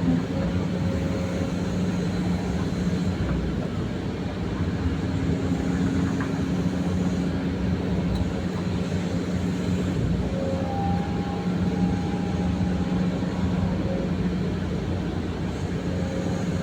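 Excavator's diesel engine running steadily, a constant drone with a steady low tone and a fainter higher whine that comes in for a couple of seconds about two-thirds of the way through.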